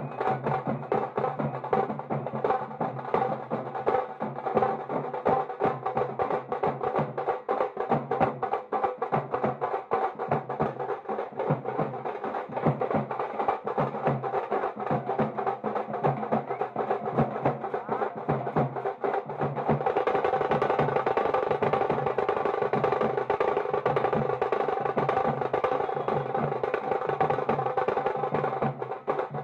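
Teenmar drum troupe beating large steel-shelled drums with sticks in a fast, driving rhythm. About two-thirds of the way in, the beating tightens into a dense, continuous roll for several seconds, then the rhythm returns near the end.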